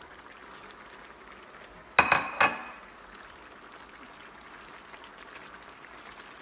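A utensil clanking twice against the cooking pot about half a second apart, each strike ringing briefly, over a faint steady hiss.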